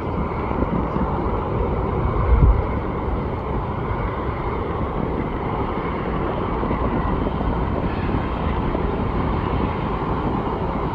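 Steady outdoor rushing noise of vehicle traffic, with one brief low thump about two seconds in.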